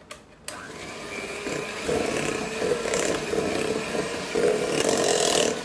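Philips electric hand mixer switched on about half a second in, running at a low-medium setting (speed 2 of 5) with its beaters spinning through thick creamed butter-and-sugar batter as an egg is beaten in: a steady motor hum with a whine.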